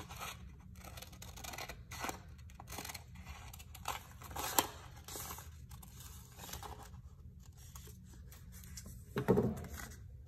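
Scissors snipping through paper in a string of short, uneven cuts as a paper vase cutout is trimmed and turned. Near the end there is a louder handling of paper as the loose scraps are gathered up.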